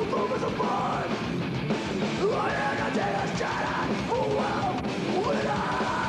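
Technical death metal music: distorted electric guitars and drums playing steadily, with gliding pitched lead lines over them.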